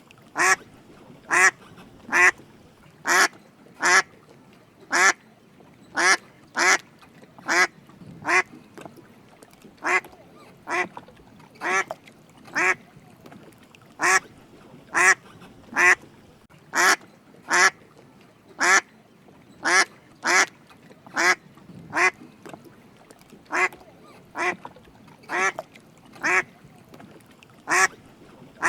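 Drake mallard duck quacking: short calls repeated at a fairly even rhythm, a little more than one a second.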